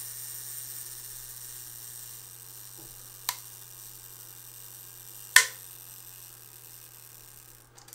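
Mechanical self-timer of a Ricoh 500G rangefinder camera running down with a steady whir that slowly fades, then stops near the end with a faint click. Two sharp clicks come along the way, the louder one about five seconds in.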